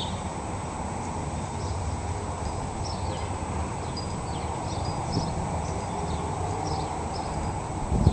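Small birds chirping in short, high calls every second or so over a steady low rumble, with a thump near the end.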